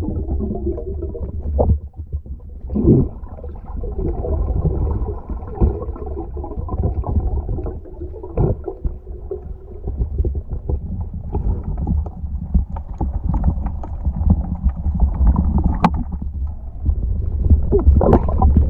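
Muffled underwater sound heard through a submerged GoPro action camera: a steady low rumble of water movement from a skin diver swimming down along a pole, with scattered knocks and clicks, the sharpest about two-thirds of the way in and a few more near the end.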